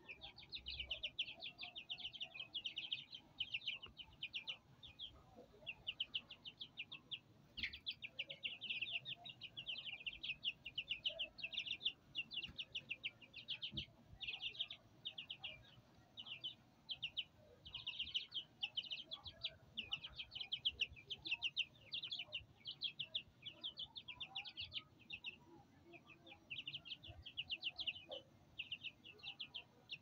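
Young Qandhari white aseel chicks peeping without letup: rapid runs of short, high cheeps broken by brief pauses.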